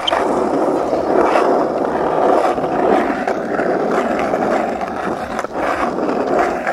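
Skateboard wheels rolling over asphalt, a steady rolling noise.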